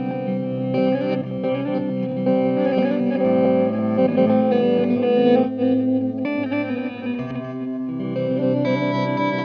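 Electric guitar, a 1976 Gibson ES-335, played through a Red Panda Particle granular delay pedal: the notes sustain and overlap with the pedal's delayed repeats.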